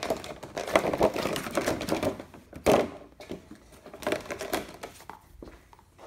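Clear plastic bag crinkling and rustling as it is handled, with irregular clicks and clatter and a louder crackle about two and a half seconds in.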